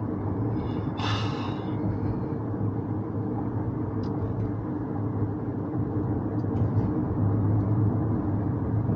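Steady road and tyre noise inside a hybrid car's cabin, cruising at about 60 km/h on electric power alone with the petrol engine shut off.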